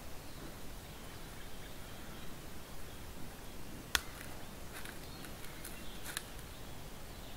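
Sharp snaps and clicks of dry twigs and grass under a bear's feet as it walks in: one crisp snap about four seconds in, then several fainter ones over the next two seconds, over a steady hiss.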